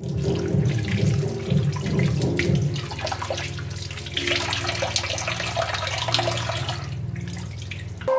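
Tap water running into a sink and splashing over hands as a bunch of fresh leafy herbs is rinsed under it; the flow is a little louder for the first few seconds, then steadier.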